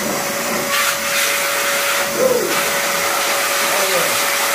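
Big Boi handheld electric car dryer blower running: a loud, steady rush of air over a constant motor whine. The air noise turns sharper for a second or so about a second in as the nozzle is moved over the car.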